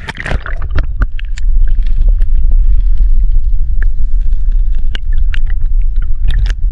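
Water splashing over a camera as it goes under the sea's surface, then a steady, loud low rumble of water against the submerged camera, with scattered small clicks and ticks.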